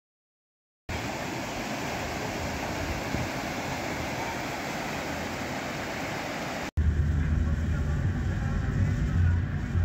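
A steady rushing noise starts about a second in. After a sudden cut about two-thirds of the way through, a louder low rumble of a motor vehicle takes over.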